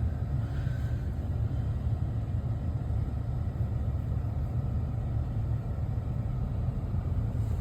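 Strong wind buffeting the phone's microphone: a steady, deep rumbling noise.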